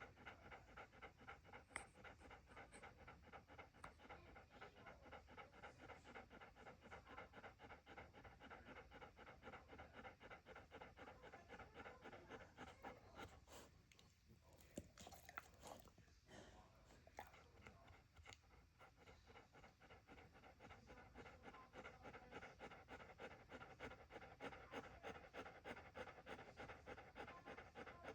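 Dog panting rapidly and steadily, about four breaths a second, with a break of a few seconds about halfway through.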